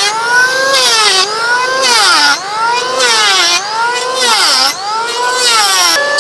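Handheld electric planer whining as it is pushed along a wooden cricket bat blade in repeated passes, about once a second. Its pitch sags as the blades bite into the wood with a hiss of shavings, then climbs back between passes.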